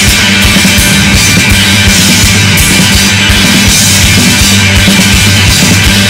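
Rock band playing an instrumental stretch with no singing: a steady drum beat under bass and guitars.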